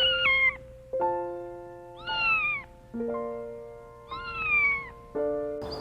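A domestic cat meowing three times, about two seconds apart, each meow short and falling in pitch. Piano-like notes sound in between the meows.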